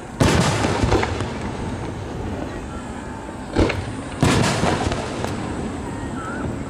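Aerial firework shells bursting. There is a loud bang about a quarter second in, a short sharp crack at about three and a half seconds, and another bang just after four seconds, each trailing off in a rolling rumble.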